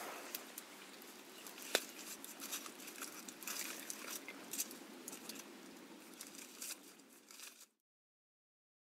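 Irregular crackling and rustling with many small sharp clicks and one louder click about two seconds in; the sound stops abruptly near the end.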